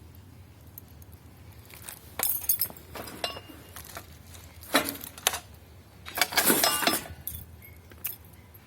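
Small hard metal pieces clinking and rattling as they are handled, in several short bursts; the longest comes about two thirds of the way through.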